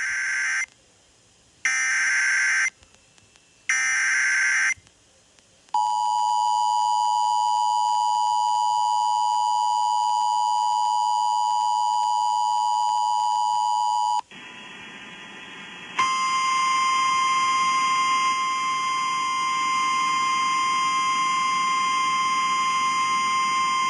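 Emergency Alert System alert tones. First come three short screeching bursts of the digital data header, a second apart. Then the two-tone attention signal holds steady for about eight seconds, and after a brief hiss a single steady warning tone like NOAA Weather Radio's sounds for about nine seconds, heralding a flash flood warning.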